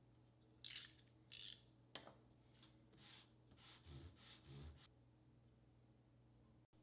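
Hand tools scraping and rubbing on leather: two sharp scraping strokes within the first second and a half, a click at about two seconds, then a run of softer rubs, two of them with a dull knock.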